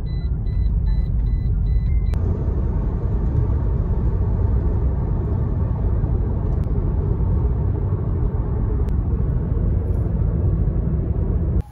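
Steady, heavy rumble of road and wind noise inside a car moving at highway speed. For the first two seconds a faint rapid beeping, about three beeps a second, sounds above it.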